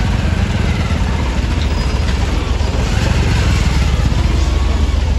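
Motorcycle engine running steadily at low speed while riding, with the low rumble of street traffic around it.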